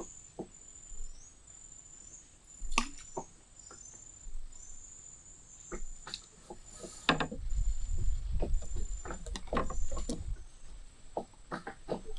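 Insects trilling at a high pitch in short repeated stretches, with scattered sharp clicks and knocks and a low rumble from about halfway through.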